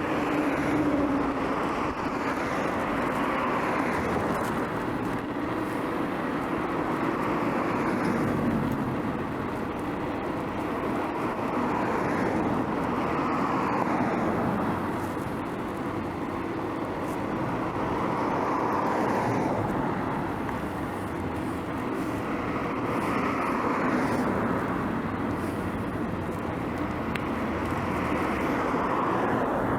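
Road traffic heard from a moving bicycle: a steady rush of car and tyre noise that swells and fades every few seconds as vehicles pass.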